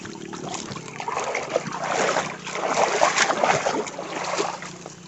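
Water splashing and sloshing as a wire-mesh bubu fish trap is hauled out of shallow floodwater, with dense irregular splashes loudest in the middle.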